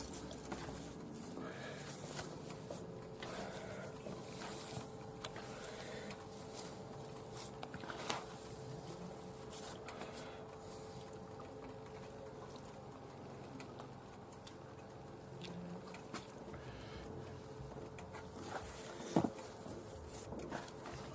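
Bare hands kneading raw minced meat in a bowl for meat patties: quiet, wet squishing and patting, with a few sharper clicks.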